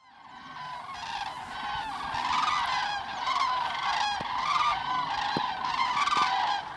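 A flock of geese honking in flight, many short calls overlapping one another, fading in over the first second or so.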